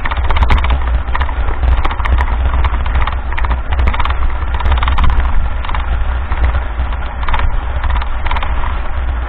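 Mountain bike rolling over a rutted dirt road: irregular rattles and knocks from the bike jolting on the rough surface, over a steady low rumble of wind on the microphone.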